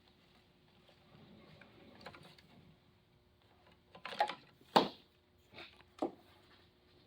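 A few sharp knocks and clunks of hard objects being handled, loudest just after four and near five seconds in, with a smaller one about six seconds in, over a faint steady hum.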